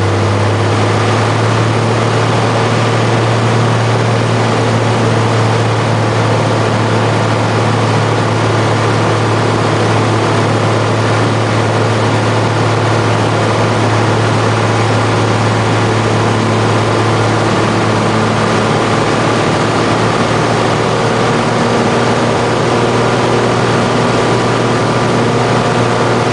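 A single-engine light plane's engine and propeller running steadily in flight, heard from inside the cabin as a loud, unchanging drone with a strong low hum.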